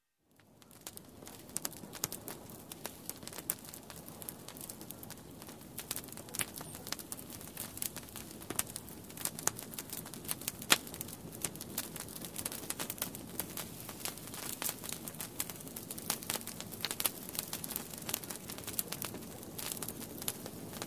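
Dense, irregular crackling and clicking over a steady hiss, with no music.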